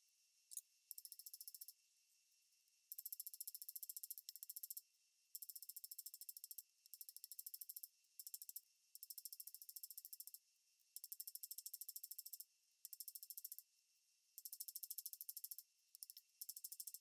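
A small hammer tapping a silver bicycle-chain ring against a steel bench block, in bursts of one to two seconds with short pauses between them. The footage runs at triple speed, so within each burst the light taps run together into a fast, faint clicking.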